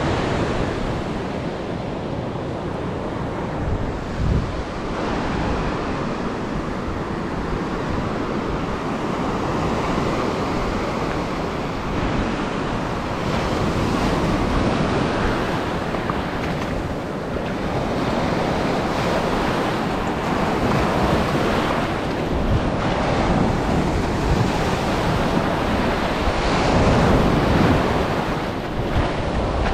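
Ocean surf washing up a sandy beach close to the microphone, rising and falling with each wave, with wind buffeting the microphone.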